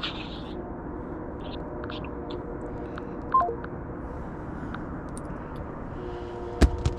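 A phone gives a short electronic beep of three tones stepping down in pitch, about three and a half seconds in, typical of a call ending. There is a steady hum throughout, and a few sharp clicks come near the end.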